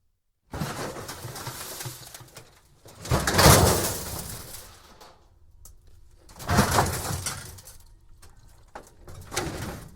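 Thin scrap metal debris being shifted, rattling and scraping in irregular bursts, loudest about three and a half seconds in and again near seven seconds.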